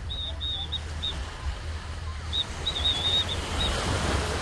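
Surf washing on a beach with wind rumbling on the microphone, a wave surging up near the end. A small bird's high chirps come in two short runs, at the start and again about halfway through.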